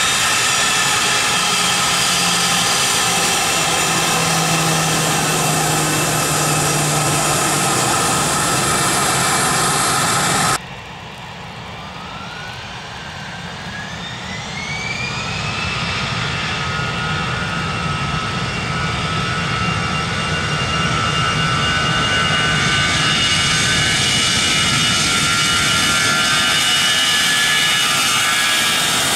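Jet airliner engines running loud at high power; about a third of the way in the sound cuts off abruptly to a second jet, whose engines spool up with a rising whine over a few seconds and settle into a steady loud run at high thrust.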